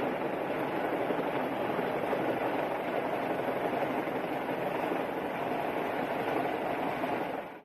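Steady loud rushing noise of a rescue helicopter's rotors and downwash, dropping out sharply at the very end.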